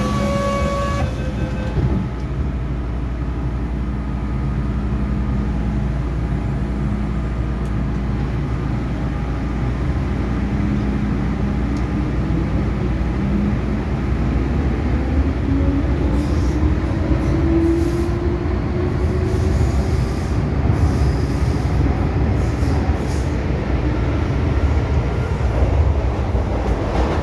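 Inside an MTR Island Line M-Train electric multiple unit pulling out of the station: a steady low rumble of the moving car, with a motor whine rising slowly in pitch about halfway through as the train gathers speed, and short wheel-on-rail clicks after that.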